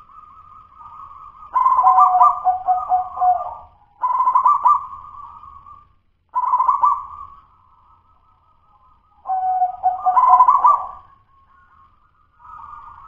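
Local zebra dove (perkutut) cooing: four loud phrases of rapid, rolling coo notes, with softer cooing at the start and near the end. The song is still the broken 'dudut-nutut' kind, not yet the smooth, fluent song that keepers prize.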